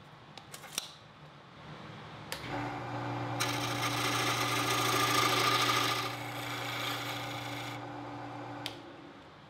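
A wood lathe's motor starts with a click about two seconds in and runs with a steady hum. A turning tool cuts a shoulder into the spinning white oak handle blank, a hissing scrape of wood for about four seconds in the middle. A few light clicks come near the start.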